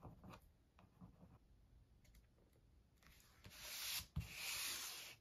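Cardboard cutout sliding and scraping across a plastic cutting mat as it is turned, in two stretches with a light knock between them. Before that, faint taps of fingers pressing paper strips down.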